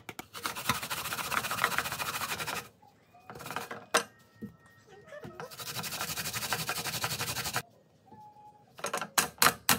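Raw pear and onion being grated on a white plastic grater over a stainless steel bowl: two long runs of quick rasping strokes with a short one between. A few sharp knocks near the end.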